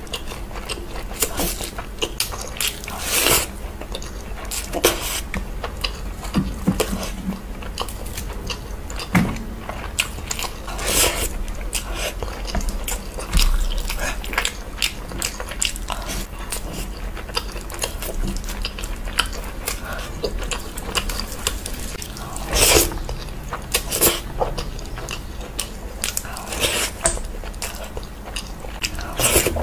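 Close-miked chewing and wet mouth smacks of someone eating mutton curry and rice by hand, with irregular short clicks, the loudest a few scattered smacks.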